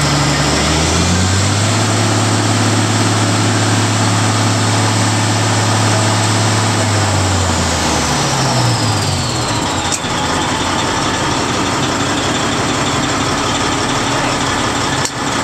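A Caterpillar C18 twin-turbo diesel power unit running. About a second in its speed steps up and holds, then drops back about halfway through, with a high turbo whine sliding down as it slows. A couple of knocks come near the end.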